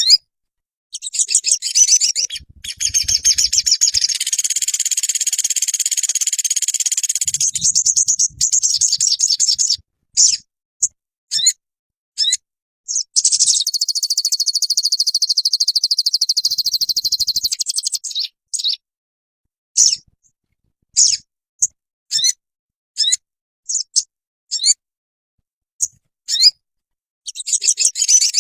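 Sogon songbird song: long, fast, high-pitched chirping trills in two runs, then short separate chirps, and the dense song starts up again near the end.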